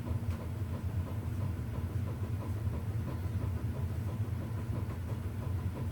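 Lasko 24-inch box fan switched off and winding down, its five-blade rotor coasting with a steady low whir.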